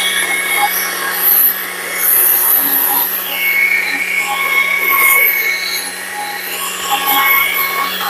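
Stihl MSA 140 C battery chainsaw running and cutting into wood while carving, its electric motor giving a steady whine under a noisy cutting sound that swells and eases with the load.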